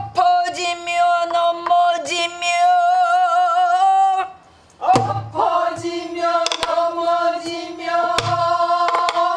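A woman singing pansori, holding long notes with a wide vibrato, to her own buk barrel drum: sharp stick strokes with a few deep thumps on the drumhead. The singing breaks off briefly for a breath about halfway, then goes on.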